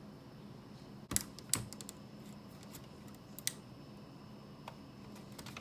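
A few light clicks and taps from handling small plastic parts while electrical tape is worked onto a broken knitting-machine belt: two sharp clicks about a second in, a scatter of softer ticks, and one more click midway, over a faint steady hum.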